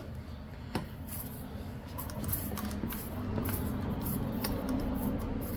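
Tyre plug kit reamer worked back and forth in a puncture in the tyre tread, a low scraping with a few sharp clicks, the tool grinding against the tyre's steel belt wires.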